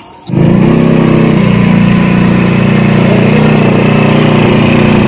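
Small motor scooter engine idling steadily. It comes in suddenly about a third of a second in.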